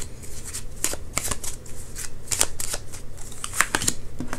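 A tarot deck being shuffled by hand: an irregular run of quick, crisp card flicks and clicks.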